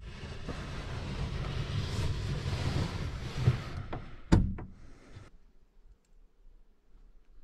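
A hunting blind's sliding window being pushed open, a long scraping slide that ends in a sharp clunk and a smaller knock about four seconds in, after which it goes quiet.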